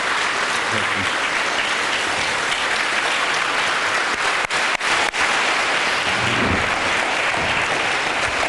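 A large audience applauding steadily: many hands clapping at once. There are a few split-second dropouts in the sound about halfway through.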